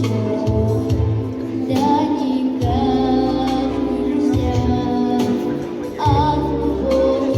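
A girl singing a pop song over a backing track with a steady bass line.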